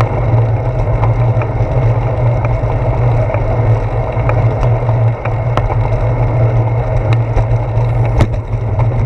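Steady low rumble of bicycle tyres rolling on a damp concrete path, carried as vibration into a handlebar-mounted GoPro Hero 4, with light clicks every second or so from bumps and a sharper knock about eight seconds in.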